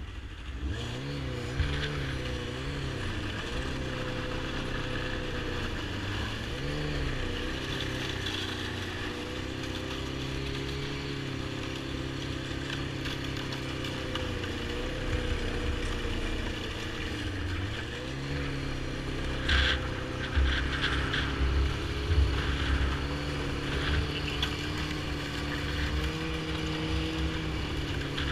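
Yamaha snowmobile engine running under the rider, revving up as the sled pulls away about a second in, then holding a fairly even pitch that dips and rises as the throttle changes. Several sharp knocks come about two-thirds of the way through.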